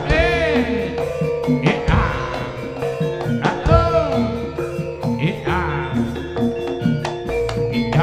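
Live jaranan ensemble music: drums and mallet percussion beating under a steady held tone, with a melody that slides up and down in pitch again and again.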